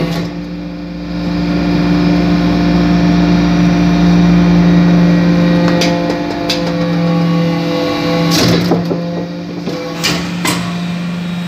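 Hydraulic metal-chip briquetting press running with a steady hum from its pump and motor as the ram presses into the chips. Several sharp clicks and knocks come in the second half.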